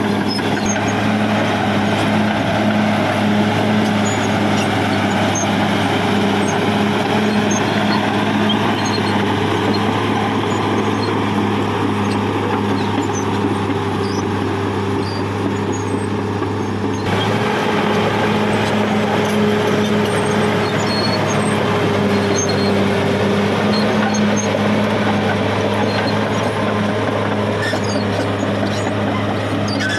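Caterpillar D6R XL bulldozer's diesel engine running steadily with a constant low drone.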